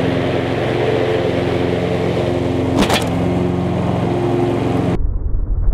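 Engine of a 36-inch Encore commercial hydro walk-behind mower running at a steady speed while mowing, with one sharp click about three seconds in. Near the end the sound cuts abruptly to a muffled low rumble.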